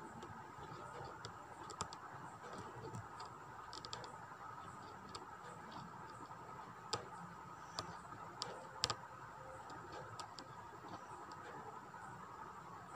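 Aari hook needle punching in and out of fabric stretched taut on an embroidery frame: faint, irregular small clicks and ticks, the sharpest about nine seconds in.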